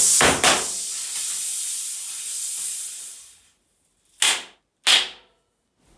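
CO2 cartridge inflator blasting gas through the valve into a tubeless bike tire to seat the bead: a loud hiss for about three seconds that fades away, then two short hisses about a second apart.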